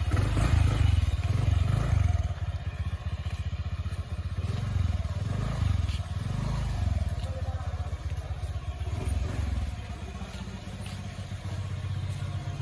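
Motorcycle engine running with a steady low rumble that swells and eases every second or two.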